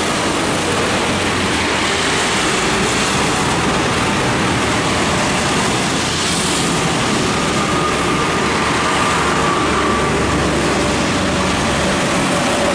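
Heavy diesel trucks passing close by on a wet road, with a steady engine rumble and tyres hissing on the wet asphalt.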